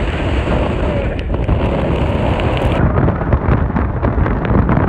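Strong hurricane wind gusting and buffeting the microphone: a loud, rough rush with heavy low-end rumble.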